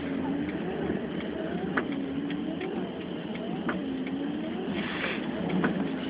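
Van cabin on the move: steady road and wind noise, with the windscreen wipers sweeping about once every two seconds. Each pass brings a click and a short whine that dips and rises in pitch.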